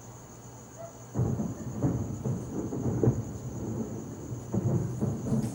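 Aerial fireworks going off in a rapid, overlapping string of booms that starts about a second in, after a quiet moment.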